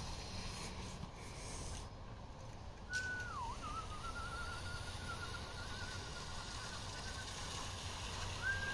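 Push brooms dragged across fresh concrete to give it a broom finish, a soft steady scraping hiss. About three seconds in a high whistled tone starts, dips once, then holds with a quick waver for about four seconds; a shorter high tone comes near the end.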